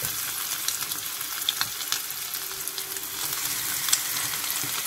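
Breaded chicken rolls frying in hot oil in a pan: a steady sizzle with scattered crackles and pops.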